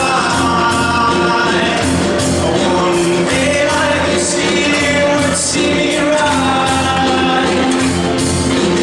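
Large mixed-voice choir singing a gospel-pop song in full harmony over a steady beat.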